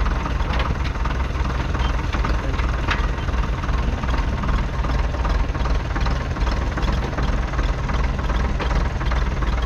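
1951 Nuffield Universal DM4's 3.4-litre four-cylinder diesel engine running steadily.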